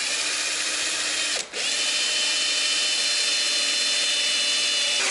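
Cordless drill running under load, a round cutter biting into a hard black plastic panel to cut out a disc. It stops briefly about a second and a half in, then runs on steadily with a high whine.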